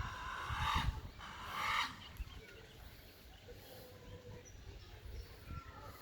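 Peacock (Indian peafowl) giving two harsh, honking calls one after the other in the first two seconds, then quieter with faint chirps of smaller birds.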